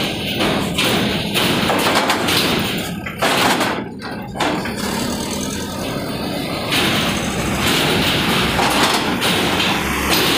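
Loaded cargo trucks driving off a ferry onto a steel-grating ramp: truck engines running, with repeated heavy thumps as the wheels roll over the ramp.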